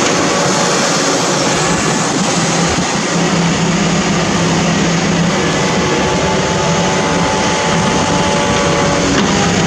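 TKM200-10 amphibious backhoe's diesel engine and hydraulics running steadily under load as its arm digs underwater, with a low engine tone that wavers slightly.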